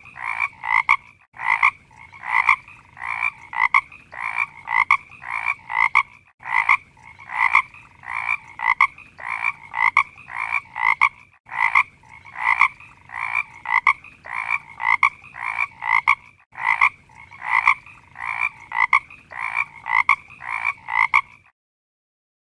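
Frog croaking in rapid, rhythmic repeated calls, a pattern that restarts abruptly about every five seconds like a looped recording. It cuts off suddenly about a second before the end.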